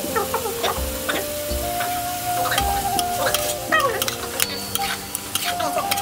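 A spatula stirring and scraping through chicken feet, green pepper and carrot frying in sauce in a pan, with sizzling and irregular clatters of the utensil against the pan.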